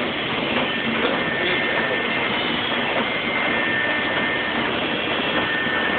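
Heidelberg Speedmaster SM 102 sheetfed offset press, four printing units plus a coating unit, running at speed during a test run. It makes a steady, dense mechanical din with faint steady whines high above it.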